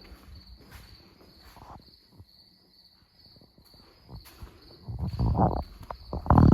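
Crickets chirping steadily in a fast, even pulse. From about five seconds in, a few louder knocks and shuffling noises come in, loudest near the end.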